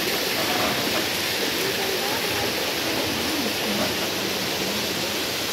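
Steady rush of running water, with faint voices of people talking in the background.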